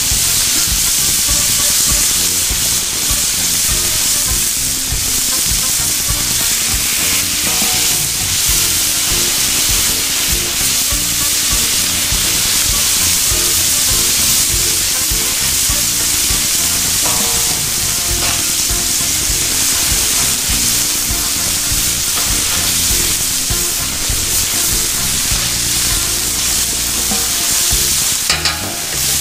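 Birria queso tacos sizzling steadily on a Blackstone flat-top griddle, a continuous frying hiss. Near the end a spatula scrapes briefly against the steel.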